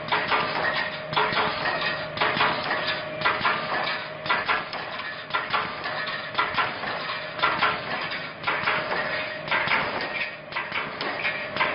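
Construction wire-mesh welding machine running, with repeated metallic clanks about once or twice a second over a steady hum.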